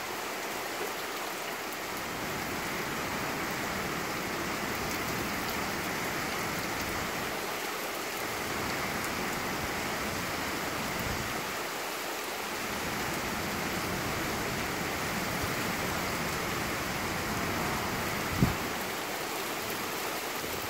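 Steady rain falling, an even hiss of drops with no letup. A single sharp knock sounds near the end, louder than the rain.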